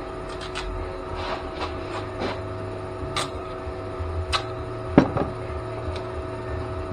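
Scattered clicks and light knocks of hands-on work, with one sharp knock about five seconds in, over a steady mechanical hum.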